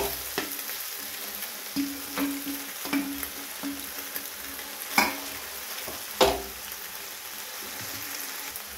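Boiled macaroni pushed off a steel plate with a wooden spatula into a pan of frying vegetables: a steady sizzling hiss under scrapes and clinks, with two sharper knocks about five and six seconds in.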